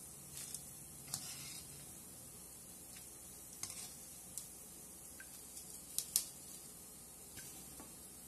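Light clicks and rattles of fried masala peanuts shifting in a wire mesh strainer, scattered through the stretch, the sharpest a quick pair about six seconds in, over a faint steady hiss.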